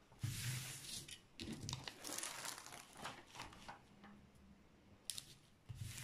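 Protective film on a diamond-painting canvas rustling and crinkling as hands lift, press and slide over it to smooth it flat, in several short bursts.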